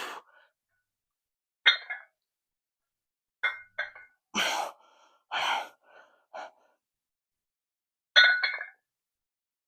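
Metal weight plates clinking against each other several times, with two heavy exhales of effort in the middle.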